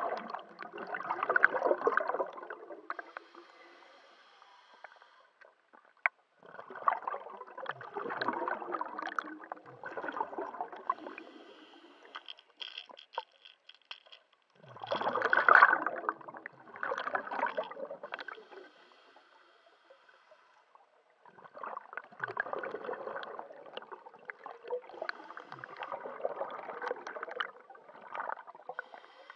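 Scuba diver breathing through a regulator underwater: exhaled bubbles gurgle in bursts of a few seconds, repeating every few seconds, with quieter hissing inhalations between them.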